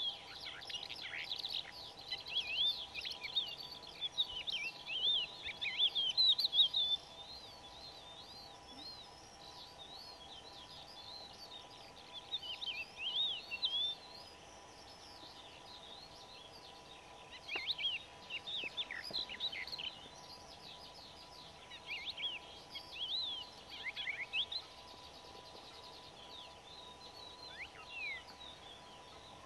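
Crested lark singing: bouts of fast, varied whistled notes, several seconds each, broken by pauses of a few seconds.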